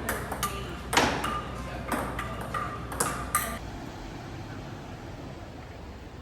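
A quick series of sharp pings, each with a short ringing tone, about nine strikes that stop about three and a half seconds in, leaving a steady background hush.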